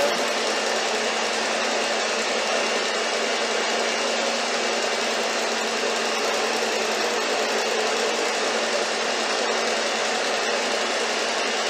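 Electric stand mixer running steadily at one constant speed, beating heavy cream and condensed milk in a stainless steel bowl until it turns thick and fluffy.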